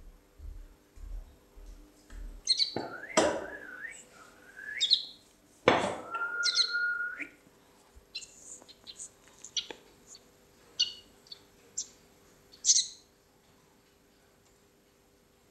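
Small bird chirping and calling in short high notes and quick pitch glides, with two louder sharp calls about 3 and 6 seconds in. It falls quiet near the end.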